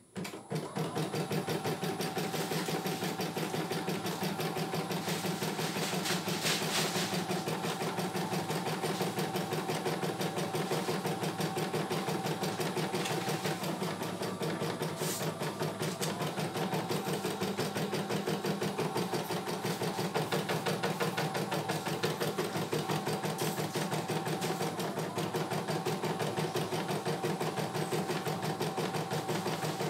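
CNY E900 computerized embroidery machine stitching a design: it starts up right at the beginning and runs on at a steady, rapid stitch rate, needle strokes coming in a fast even rhythm over a steady motor hum.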